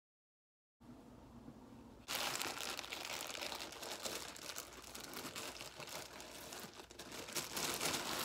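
Clear plastic packaging crinkling as it is handled and pulled open by hand, starting suddenly about two seconds in after a second of dead silence.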